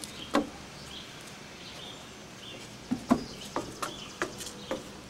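Quiet outdoor field ambience with a steady background hiss and faint, short, high chirps, broken by a handful of sharp clicks: one about half a second in and a cluster from about three to five seconds in.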